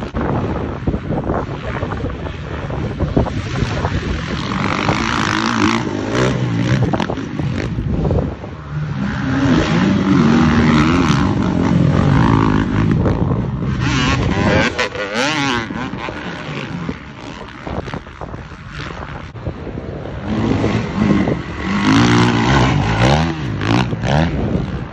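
450-class motocross bikes racing, their engines revving up and down repeatedly as riders work the throttle, with louder passes about a third of the way in and again near the end.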